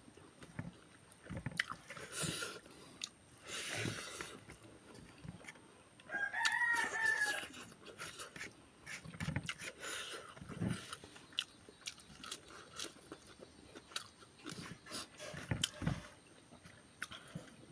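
Close-up chewing and crunching of food, with irregular clicks and bites. A rooster crows once in the background about six seconds in, a single arched call lasting about a second and a half.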